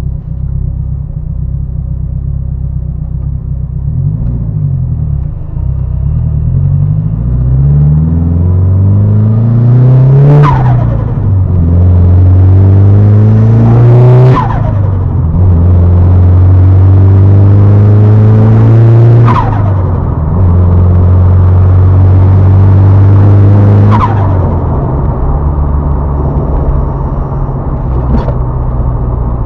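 Turbocharged four-cylinder car engine being revved and held at high rpm several times. Each lift off the throttle brings a sudden burst of turbo flutter as the revs fall, four in all. It settles back to idle near the end.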